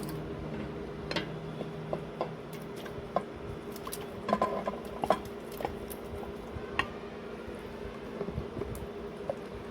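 Spoon and cookware clinking and scraping in a cooking pot, with soft squelches as chicken kofta balls go into wet gravy. Short, irregular clicks over a steady low hum.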